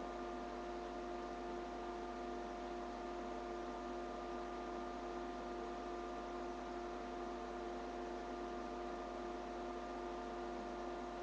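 Steady electrical hum made of several whining tones over a faint hiss, unchanging throughout: background noise picked up by a webcam microphone in a dark, still room.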